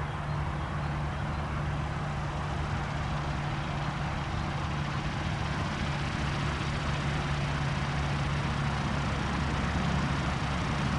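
An engine running steadily with a constant low hum, growing slightly louder towards the end.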